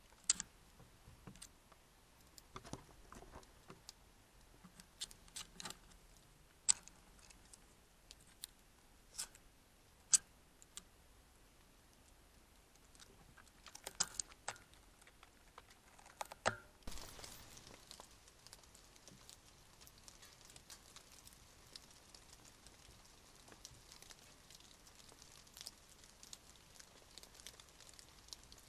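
Raindrops dripping: scattered sharp ticks and taps at first, then light rain pattering more steadily from about halfway through.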